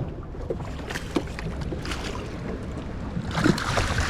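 Steady low rumble of wind and water on a small fishing boat, with scattered knocks and clicks from handling a freshly caught fish and tackle, and a louder rustling burst near the end.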